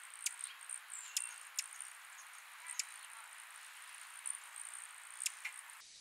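Hummingbird at a feeder giving faint, sharp, high chip notes, about eight scattered through, over a steady thin high-pitched trill.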